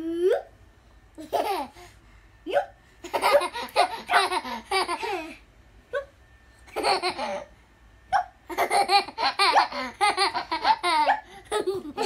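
Young children laughing in repeated bouts of quick, breathy ha-ha giggles, with the longest runs about three seconds in and again about nine seconds in.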